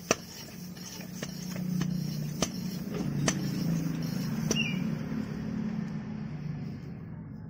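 Low engine hum that swells and then fades away over several seconds, with a few sharp clicks about a second apart.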